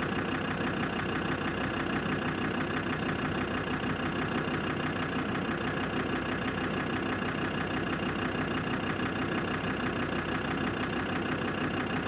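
Vehicle engine idling steadily at an even pace.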